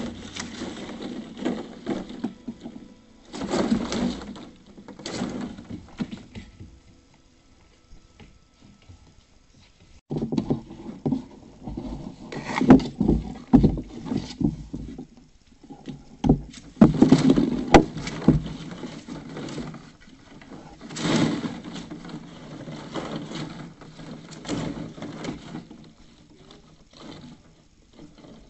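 Hollow plastic ball-pit balls clattering and rustling against each other and the plastic kiddie pool as puppies romp through them, in uneven bursts with a lull of a few seconds about a quarter of the way through.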